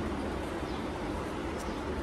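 Steady low background rumble, with one faint click late on.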